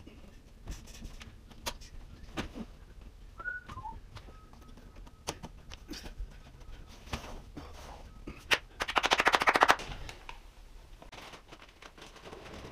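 Scattered light taps and clicks of plastic corner bead being handled and pressed onto a drywall arch. About nine seconds in comes a loud, fast rattle of clicks lasting about a second, the loudest sound.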